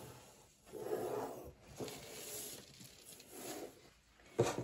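A pencil scratching across pattern paper along a ruler in several strokes of about half a second to a second each. Near the end there is a sharp knock as the ruler is set down on the paper at a new angle.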